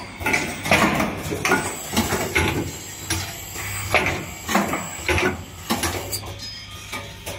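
Automated spin-column assembly machine running: irregular sharp mechanical clacks, about two a second, over a steady low hum.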